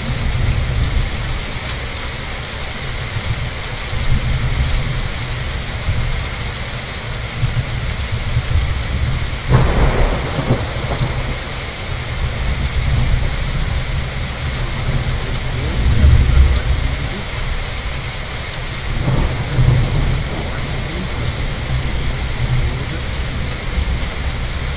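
Steady rain with thunder: a sudden crack about ten seconds in, followed by low rumbling swells later on.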